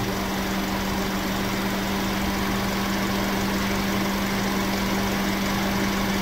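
Audi S3 8V's 2.0 TFSI four-cylinder engine idling steadily, with an even hum. It is kept running so the DSG gearbox oil is at temperature while its level is set.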